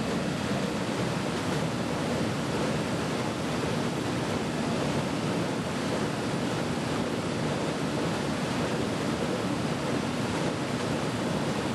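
Steady rushing noise of potato-handling farm machinery running, with no clear rhythm or pitch.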